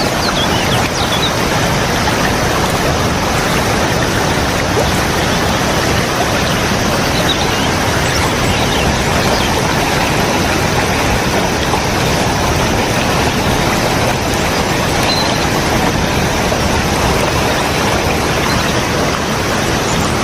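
Loud, steady rush of water falling at a waterfall.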